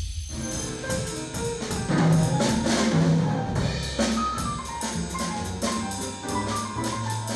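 Jazz trio playing live: acoustic piano notes over upright double bass, with drum kit and cymbal strokes keeping a steady beat. A brief whoosh opens it.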